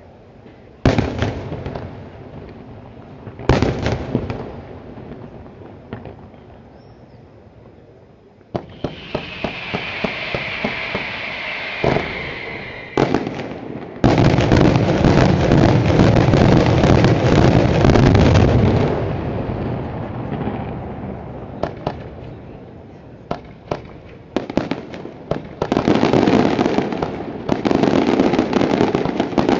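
Daytime fireworks: two single loud bangs of aerial shells, then a few seconds of hissing. A dense barrage of rapid reports follows for about five seconds, then scattered cracks, and another dense volley near the end.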